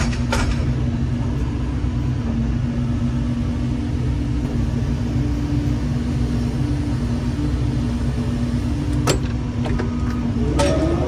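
Diesel engine and hydraulics of a Doosan 140W-5L wheeled excavator running steadily as the boom and the tiltrotator-mounted hydraulic breaker are moved, the breaker not striking. A few sharp clicks, one about nine seconds in.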